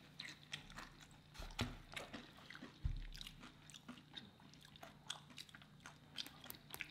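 Close-up chewing of burrito and rice-bowl food, with many small soft clicks and a couple of low thumps about one and a half and three seconds in.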